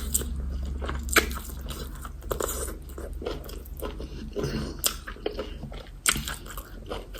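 Close-miked mukbang eating sounds: chewing and wet mouth smacks with irregular sharp clicks, the loudest about a second in.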